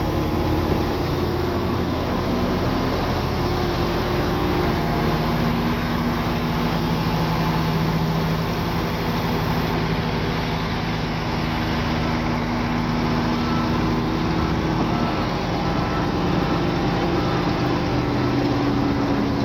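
Heavy diesel engines of earthmoving machinery running steadily, their pitch drifting up and down a little as they work.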